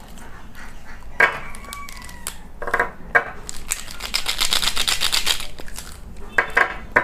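A bundle of plastic brush pens clicking and rattling together as they are handled, with a quick run of rapid clicks lasting over a second about halfway through.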